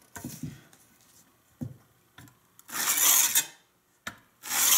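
Carborundum sharpening stone drawn along the side of a Spear and Jackson dovetail saw's steel plate, two scratchy rubbing strokes in the second half. This is stoning the sides of the teeth after setting, to take off any errant tooth or metal burr sticking out.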